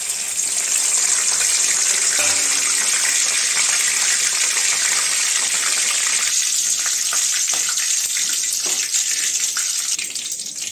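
Whole spices, among them bay leaves, sizzling in hot oil in an aluminium kadai. The hiss is loud and dense, then eases after about six seconds into a thinner sizzle with scattered crackles.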